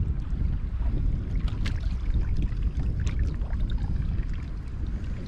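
Wind rumbling on the microphone while choppy water laps and splashes against the boat's hull, with a few faint ticks.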